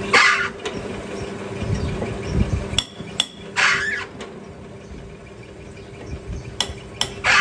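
Sharp metal clicks and clinks as a steel chuck key is fitted and turned in a four-jaw lathe chuck holding a piston, with three short swishing scrapes about three and a half seconds apart. A steady low hum runs underneath.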